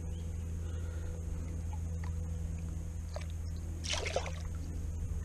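A bass released over the side of a kayak, hitting the water with a brief splash about four seconds in, over a steady low rumble.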